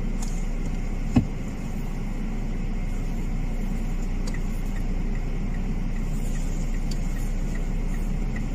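Inside a moving car: a steady low rumble of engine and road noise. A sharp click comes about a second in, and faint regular ticking, about three a second, runs from about four seconds in.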